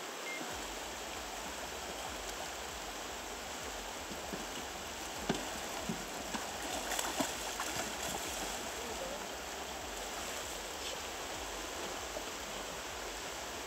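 Fast river current rushing past an inflatable raft, a steady hiss of riffled water. A few brief splashes and knocks break in about five to seven seconds in, as a hooked fish thrashes at the surface beside the raft.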